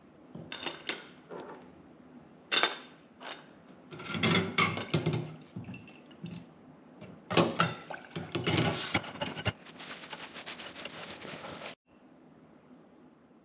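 Clatter and knocks of a metal part being handled, then liquid splashing and sloshing as it goes into a tub of EvapoRust rust remover. The liquid sound runs steadily for a couple of seconds and cuts off about two seconds before the end.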